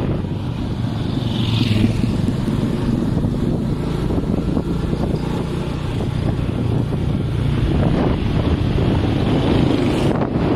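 Motorcycle running at road speed, heard from the pillion seat: a steady low engine hum under wind buffeting the microphone.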